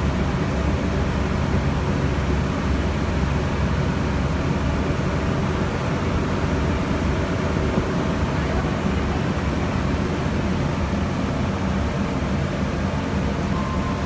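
Cruise boat's engine running steadily: a low drone under an even rushing noise of wind and water.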